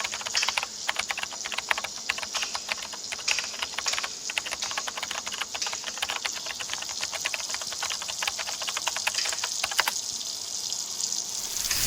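Water running and splashing: a dense, irregular patter of small ticks over a steady hiss. The ticking stops near the end, leaving only the hiss.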